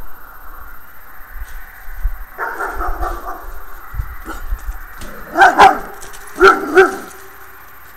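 Dog barking: a longer drawn-out call about two and a half seconds in, then two loud double barks about a second apart in the second half.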